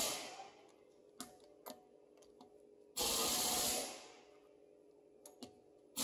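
Air impact wrench run in short bursts of about a second each, tightening lug nuts on a wheel. One burst is tailing off at the start, another comes about three seconds in, and a third starts at the very end, with a few light clicks in between.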